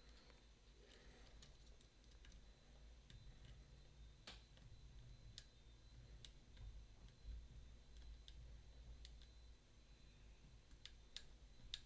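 Faint, scattered clicks and ticks of a metal lock pick working inside a Mottura CP6 dimple lock, over a low steady hum.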